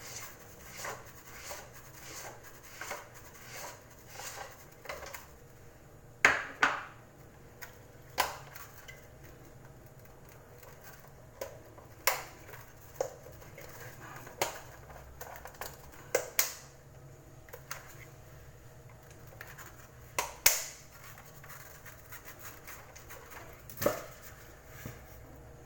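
Plastic clicks and knocks from an eSpring water filter unit's housing cap being twisted off and handled: a run of evenly spaced small clicks, then scattered sharp knocks.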